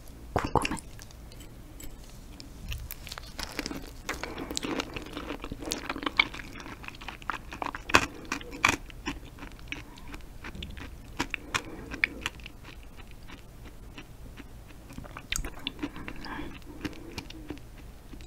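Close-miked chewing of raw yellow stingray liver, with many scattered sharp mouth clicks.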